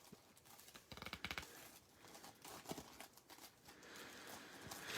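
Faint rustling and light taps of patterned paper and cardstock being handled, with a soft sliding hiss building near the end.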